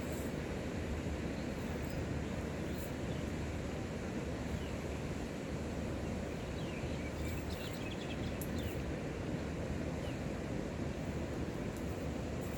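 Steady low rumbling outdoor noise, with a few faint high chirps about halfway through.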